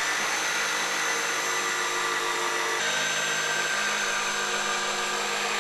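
Jigsaw cutting lengthwise along the grain of a pine siding board, running steadily; its pitch shifts slightly about three seconds in.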